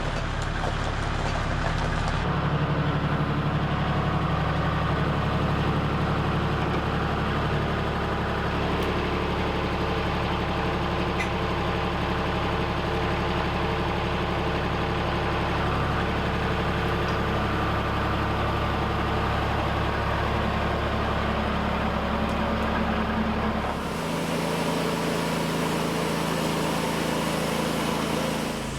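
An engine running steadily at a constant speed, with abrupt changes in its sound about two seconds in and again near the end.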